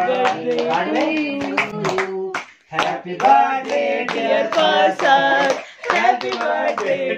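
A small group singing a birthday song together over hand clapping, in phrases broken by short pauses about two and a half and six seconds in.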